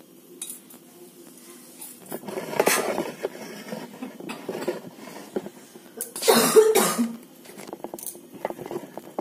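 A person coughing in two short fits, about three and a half seconds apart.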